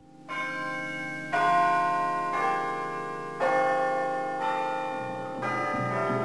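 Theme music of ringing bell tones: a new set of chimes is struck about once a second, and each rings on under the next.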